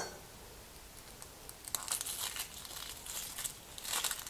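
Papery outer skin of a yellow onion being peeled off by hand: faint crinkling, tearing rustles, once about a second and a half in and again near the end.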